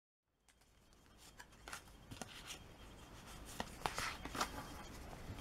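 Foil wrapper of a Pokémon trading card booster pack crinkling as it is pulled open, and the cards inside sliding out and being handled. Faint, with a scatter of sharp crackles, starting after a moment of dead silence.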